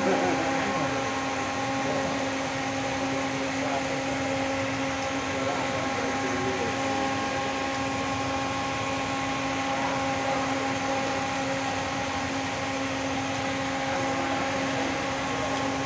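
A steady machine hum at one constant pitch, unchanging throughout, over a light haze of background noise.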